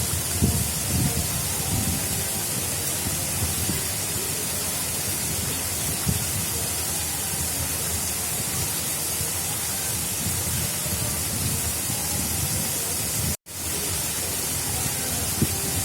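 Water of an artificial river rushing steadily, a continuous hiss, with uneven low rumbles near the start and near the end. The sound cuts out for an instant about thirteen seconds in.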